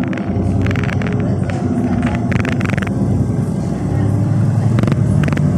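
NefAZ 5299 city bus's engine and drivetrain running under way, heard from inside the cabin as a steady low drone, with a couple of brief hissing bursts about a second and two and a half seconds in.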